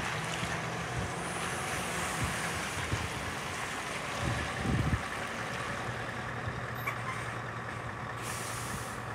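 Scania R580's V8 diesel engine running at low revs as the hooklift truck drives slowly and turns to a stop. A gust of wind buffets the microphone about four to five seconds in, and a short air-brake hiss comes near the end as the truck stops.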